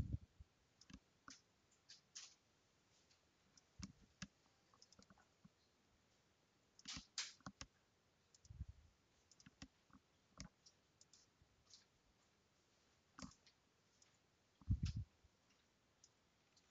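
Near silence broken by faint, irregular computer mouse clicks, with two soft low thumps about eight and a half and fifteen seconds in.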